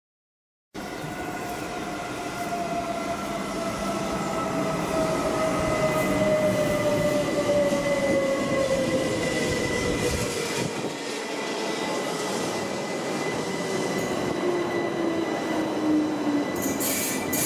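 Berner Oberland Bahn electric multiple unit running slowly along a station platform as it pulls in. Its motor whine falls steadily in pitch as it slows, over a steady high tone and wheel-on-rail noise. A short hiss comes near the end.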